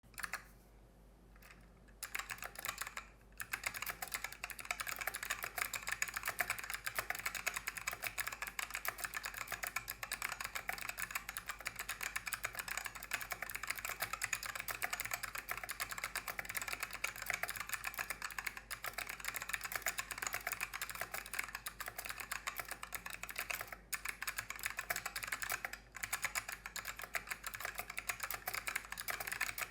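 Fast, continuous typing on a KBParadise V60 mechanical keyboard with white Fuhua switches and ungreased stabilizers. The keystrokes start about two seconds in and run as a dense stream of clicks, with a few brief pauses.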